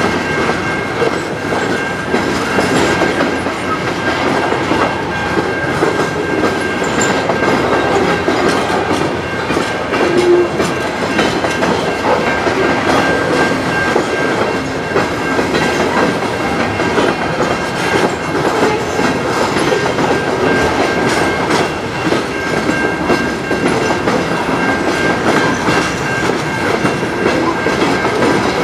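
Freight train of covered hopper cars rolling past at close range: steady wheel-on-rail rumble with clickety-clack over the rail joints. A steady high-pitched tone runs under it throughout.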